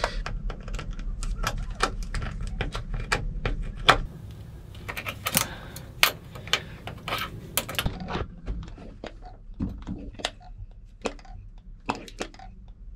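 Irregular metallic clicks and clinks of a spanner on the fuel-pump bleed screw and of the hand-priming plunger on the fuel filter head of a narrowboat diesel engine, done while bleeding air out of the fuel system.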